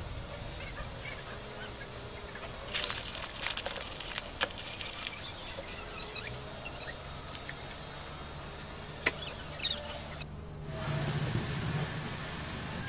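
Light clicks and taps of hands handling a painted metal motorcycle wheel hub, bunched a few seconds in with a couple more near the end. Under them a steady insect drone and faint fowl calls.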